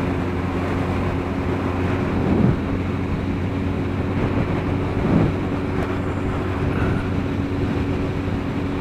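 Motorcycle engine running steadily at cruising speed, a constant low drone mixed with wind and road rush.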